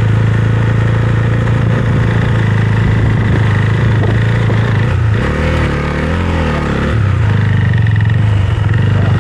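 Husqvarna Svartpilen 401 single-cylinder motorcycle engine running steadily while under way. Its note dips and changes for about two seconds midway, then settles back.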